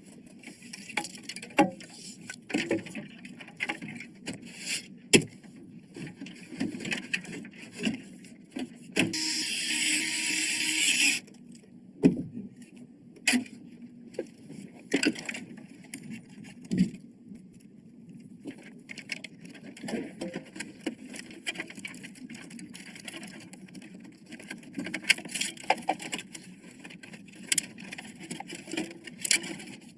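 Computer parts being handled during assembly: scattered clicks, taps and knocks of plastic and metal. About nine seconds in there is a rustling hiss lasting about two seconds.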